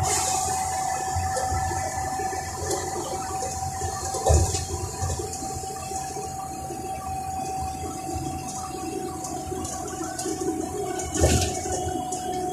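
Cabin noise inside a moving Iveco MyWay intercity bus: a steady rushing drone with a constant whine, broken by two thumps, one about four seconds in and another near the end.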